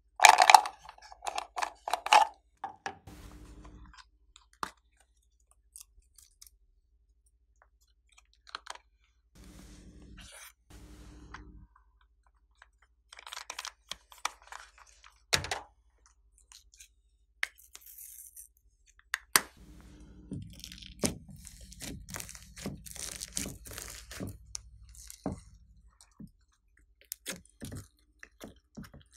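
Slime being squeezed and mixed by hand: irregular sticky crackles, clicks and pops, loudest in the first couple of seconds, with a faint low hum that comes and goes.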